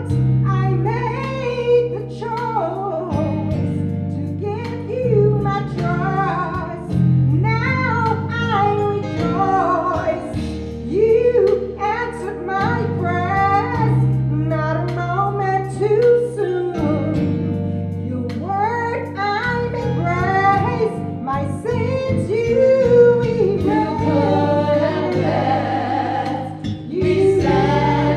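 Gospel song: a woman sings the lead into a microphone over sustained instrumental accompaniment. The rest of the group joins in near the end.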